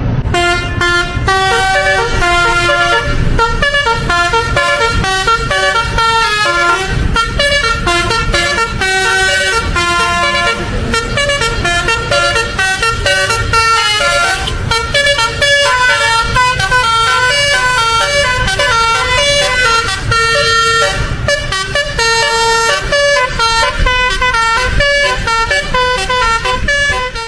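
Telolet horn of an Armada Jaya Perkasa bus: a set of musical air horns playing a fast tune of short, changing notes one after another, loud and without a break, over a low rumble. It cuts off abruptly at the end.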